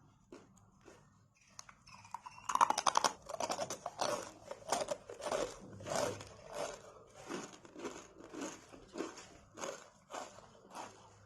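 Crunchy murukku, a South Indian fried snack, being eaten close to the microphone. A crisp bite about two and a half seconds in is followed by steady crunchy chewing, about two chews a second, slowly getting a little quieter.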